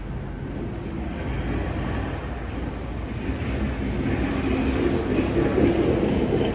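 City street traffic: a motor vehicle running on a snow-covered street, its engine and tyre noise a steady rumble that grows louder as it approaches.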